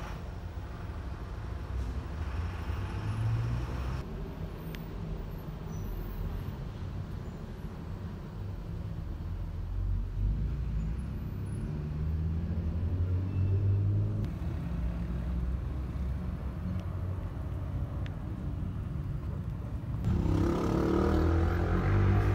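Engine of a DINA CATOSA Sansón city bus running, its low note rising and falling. It grows louder and brighter near the end.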